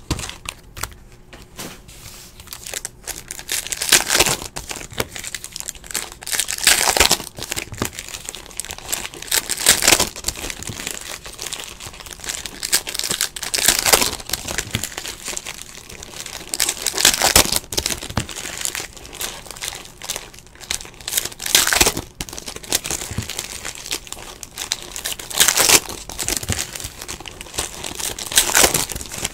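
Foil packs of Panini Hoops basketball trading cards being torn open one after another, wrappers crinkling, with a sharp tear every few seconds.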